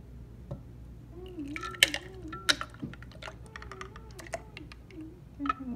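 Ice cubes clinking and knocking against a glass pitcher as a milky cantaloupe drink is poured into a plastic blender cup, with the liquid splashing and glugging. The clinks start about a second and a half in and come in a quick irregular run.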